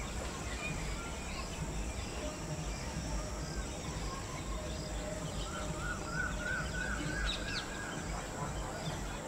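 Outdoor background noise with a steady low rumble and birds chirping here and there. Just past the middle, one bird gives a quick run of about nine repeated chirps, about four a second, lasting some two seconds.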